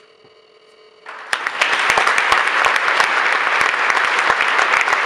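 The youth orchestra's final held note fades out faintly. About a second in, the audience starts applauding and the applause stays loud, with dense clapping.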